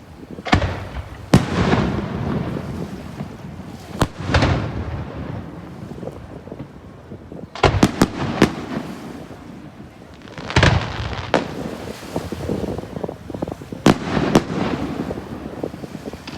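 Aerial fireworks shells bursting: a string of sharp bangs, some singly and some in quick clusters of two or three, each trailing off into a low rolling rumble.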